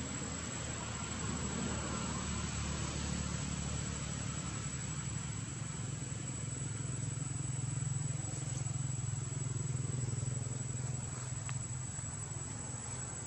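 Low, steady rumble of a motor vehicle's engine, swelling a little in the middle, under a constant hiss.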